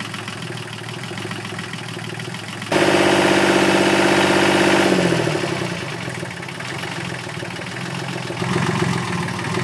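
Volvo Penta 2030 three-cylinder inboard diesel running steadily after an oil, filter and coolant service. About three seconds in it suddenly gets much louder, then after about two seconds its pitch falls back and it runs on at a steady idle.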